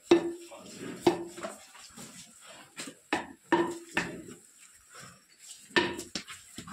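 Sharp metallic clanks, about six at irregular intervals, each with a short ring.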